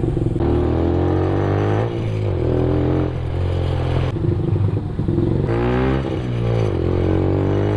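Benelli TNT 15's 148cc air-cooled single-cylinder four-stroke engine, running through an aftermarket exhaust with its silencer removed, being revved in neutral. Its pitch rises and falls about five times.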